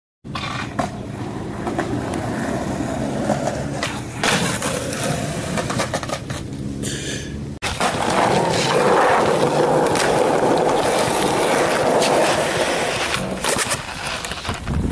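Skateboard wheels rolling over hard pavement, broken by several sharp clacks of the board as it is popped and landed.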